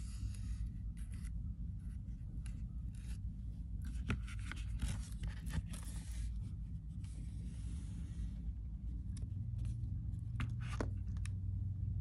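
Fingers rubbing and brushing over an oiled-leather sandal strap and its cork footbed, making scattered light scrapes, scratches and soft taps, over a steady low hum.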